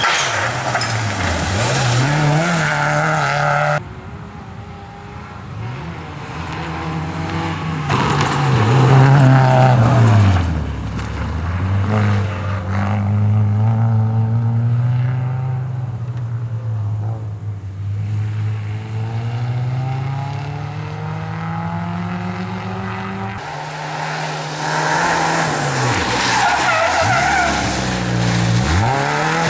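Peugeot 106 Rallye's 1.6-litre four-cylinder petrol engine revving hard as the rally car drives past at speed, the pitch climbing and then dropping with each gear change. It is heard over several passes, cut one after another.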